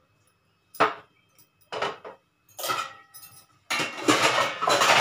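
Steel kitchen vessels knocking and clinking: three separate ringing knocks about a second apart, then a busier stretch of clatter ending in a loud clang.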